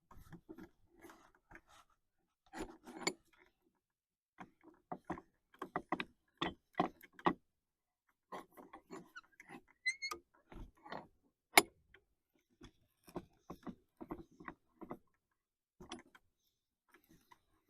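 Irregular metal clicks, knocks and clinks as parts of a cast-iron combination vise are handled and adjusted. There is a short metallic ring about ten seconds in and a single sharp knock just after it.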